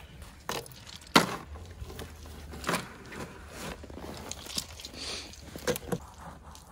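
American bison feeding from a trough of grain pellets, with irregular sharp knocks and clicks as it noses into the feed. The loudest knock comes about a second in.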